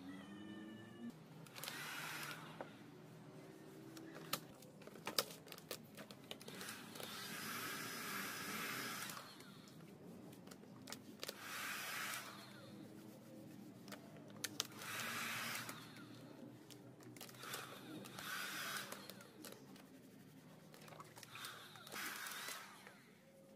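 Handheld hot air gun blowing in stretches of a second or two, about six times, as it heats black matte vinyl wrap film. Between the blasts come scattered sharp clicks and crackles of the film being pressed and worked onto the panel.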